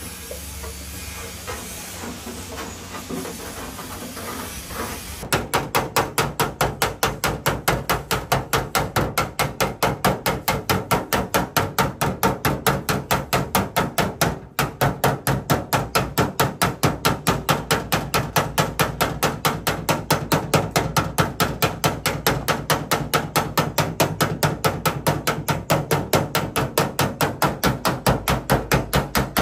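Body hammer beating out a dent in a car door's sheet metal: a long run of rapid, even blows, about three to four a second, with one brief break partway through. A steady hiss comes before the hammering starts.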